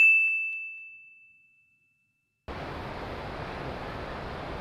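A single clear bell-like ding that rings out and fades away over about two seconds against dead silence. Then steady rushing background noise returns about halfway through.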